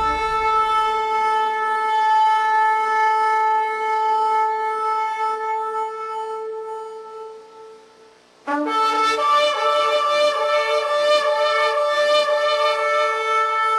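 Long, steady trumpet-like horn blast on one held note that fades away over about eight seconds. A second blast starts abruptly about eight and a half seconds in, brighter, and is held on.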